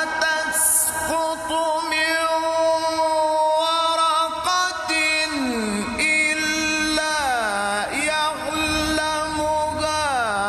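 Male reciter's voice in melodic, drawn-out Quran recitation, holding one long ornamented note and then sliding down in pitch through three descending runs.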